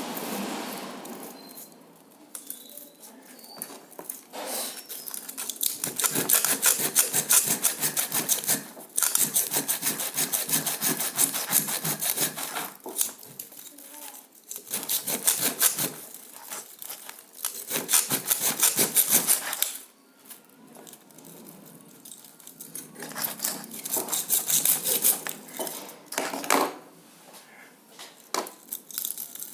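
Sawing at the copper windings of a microwave oven transformer, in several bouts of quick back-and-forth strokes with short pauses between them.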